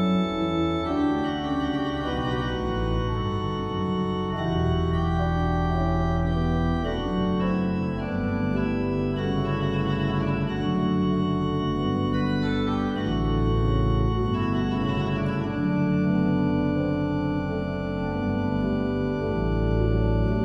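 Pipe organ playing a classical piece: several voices move over long, deep bass notes held on the pedals.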